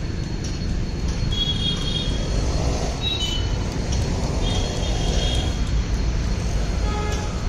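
Urban street traffic with a steady low rumble. Short high-pitched chirps come several times in the middle, and a short horn-like tone sounds near the end.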